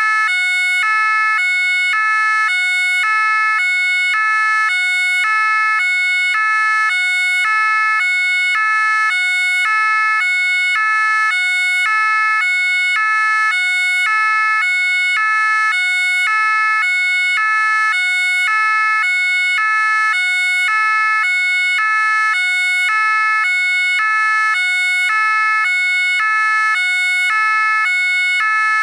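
French gendarmerie two-tone siren ("pin-pon") sounding steadily, switching evenly back and forth between two fixed pitches with no glide between them.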